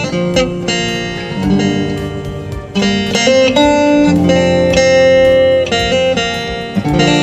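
Pickup-equipped acoustic guitar played through a preamp DI box and amplifier: ringing chords that change several times.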